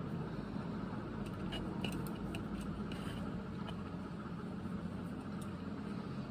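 Steady low hum with a few small clicks and rustles of handling about one to three seconds in.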